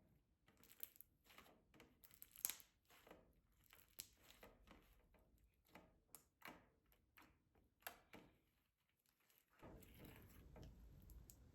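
Slime being handled: faint, irregular clicks and pops, then a soft steady hiss from about nine and a half seconds in.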